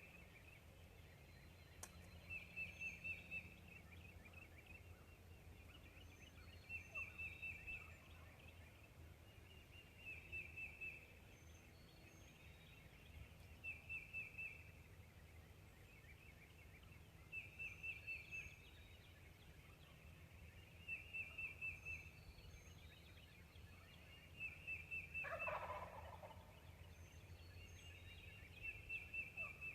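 Wild turkey gobbling over and over, about eight short rattling gobbles each roughly three to four seconds apart, with one lower call near the end.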